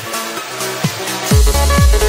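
Electronic dance music with a steady kick drum beat; a heavy bass line comes in about a second in and the music gets louder.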